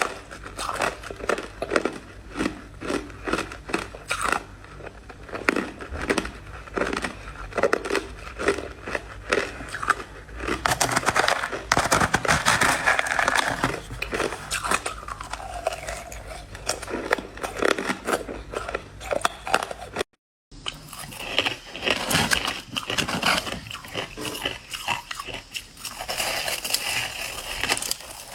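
Crushed ice being chewed, with a steady run of crunches at roughly two a second. There is a denser, continuous crunching stretch about ten seconds in, and a brief dropout about twenty seconds in.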